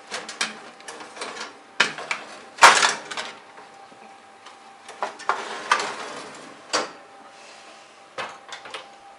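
Metal baking tray scraping and clanking on an oven's wire rack as it is slid in, with a sharp clank a little under three seconds in and a longer scrape around five to six seconds.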